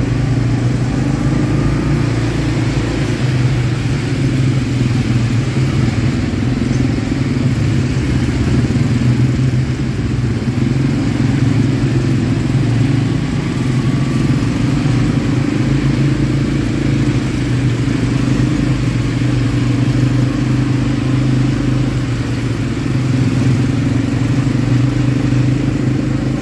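ATV engine running under way at a fairly even speed, its pitch wavering only slightly.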